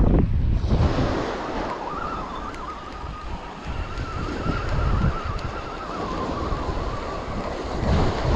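Wind buffeting the microphone over the wash of sea surf. The wind rumble is heaviest at the start and again near the end, easing in the middle, where a faint wavering tone is heard for a few seconds.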